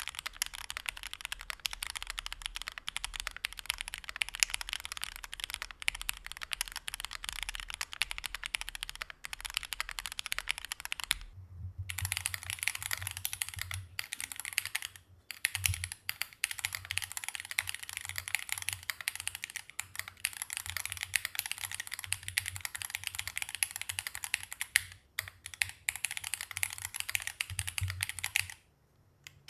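Fast, continuous typing on a Wind Studio Sin65 custom mechanical keyboard with Diamond switches: a dense stream of key clacks. After a short break about eleven seconds in, the take switches to a different microphone and the keystrokes have a heavier, deeper low end.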